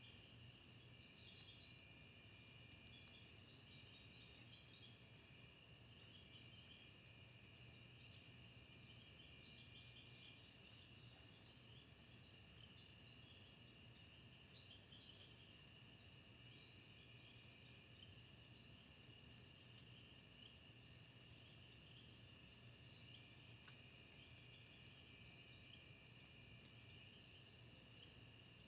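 Woodland insect chorus: several steady, high-pitched drones with softer, flickering chirps beneath them, fairly faint throughout.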